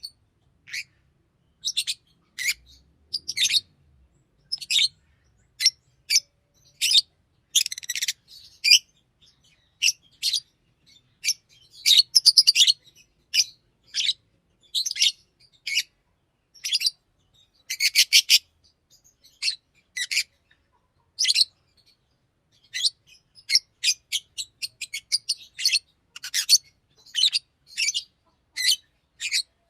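Green Fischer's lovebird chirping and singing: a steady run of short, high-pitched chirps at uneven spacing, broken by a few rapid, buzzy chattering runs.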